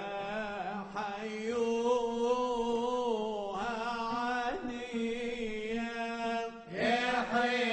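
Male voices singing a bakashot piyyut in a slow, ornamented chant over a steady held low note. A brief dip near the end is followed by a fuller, louder entry.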